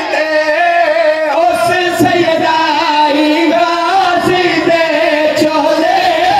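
A man singing a devotional recitation into a microphone, in a chanting style with long held notes that waver and ornament in pitch.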